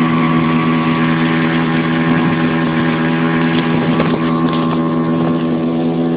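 Small motorboat's engine running at a steady speed while underway: a constant-pitch drone that holds level throughout.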